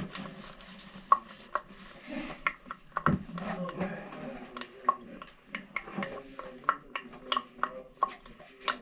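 Irregular light clicks, knocks and clatter of toilet-tank parts and tools being handled, with a duller thump about three seconds in.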